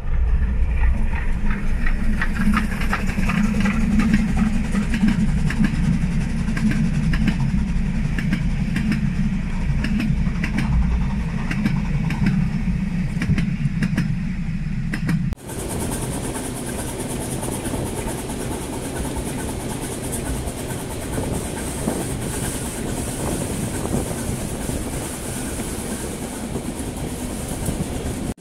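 Harz narrow-gauge steam train passing close by at a level crossing: a heavy low rumble with quick clattering of wheels and wagons on the rails. About fifteen seconds in it cuts abruptly to the ride aboard the moving train, a steadier rolling noise with a high hiss.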